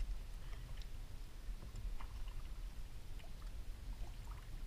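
Faint water sounds around a kayak over a steady low rumble, with small scattered ticks.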